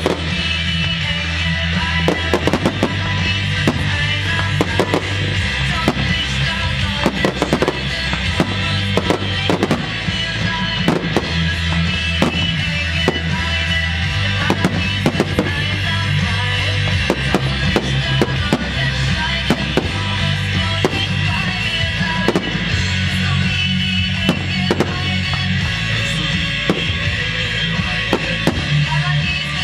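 Aerial firework shells bursting in a long, irregular string of sharp bangs and crackles, heard through loud music played for a pyromusical display.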